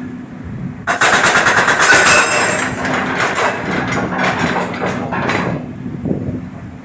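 Jackhammer hammering on micro-tunnel concrete: a rapid train of blows starts about a second in and stops about four and a half seconds later, over a steady engine hum.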